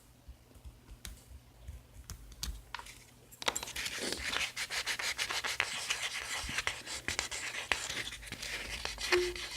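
Nail buffer rubbed rapidly back and forth over a patched thumbnail to smooth it, a dense scratchy rubbing that starts about a third of the way in; before that only a few faint light taps.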